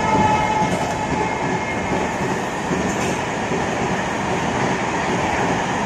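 Train running on the line: a steady, loud rumble of wheels on rails, with a faint whine that fades in the first couple of seconds.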